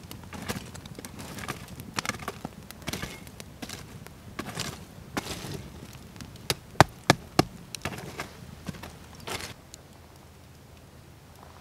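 A wooden stick raking and poking through a campfire's burning logs and embers: scraping, shuffling and wood knocks, with a quick run of loud sharp cracks about seven seconds in. It goes quiet after about ten seconds.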